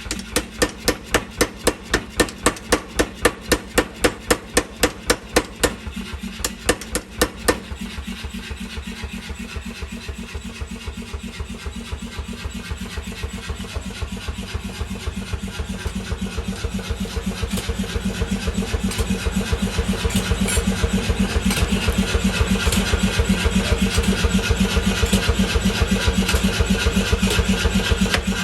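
Hammer blows at forging, evenly spaced at about three a second, stopping about seven seconds in; then a machine runs with a fast, even pulse that grows steadily louder toward the end.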